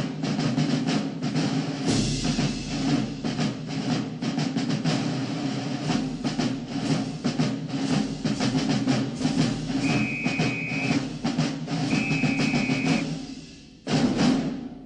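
Drum-heavy music with a busy, steady beat of drum strikes, and two held high tones of about a second each in the second half. The sound drops away briefly near the end, then comes back.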